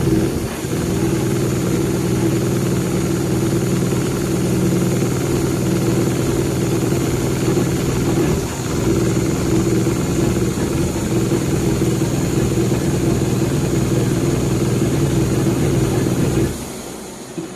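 A CNC leather perforation machine punching with 1.5 mm needles, running with a steady mechanical drone. There are brief dips about half a second and eight and a half seconds in, and it stops near the end.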